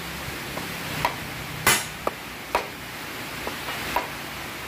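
Irregular sharp knocks, about seven, struck through a wooden block against a steel toothed timing pulley to drive it along the crankshaft nose. The loudest, sharpest knock comes a little under two seconds in.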